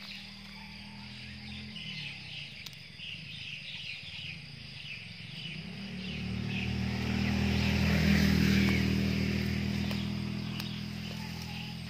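Crickets chirping steadily, while a vehicle's engine hum swells to its loudest about eight seconds in and then fades as it passes.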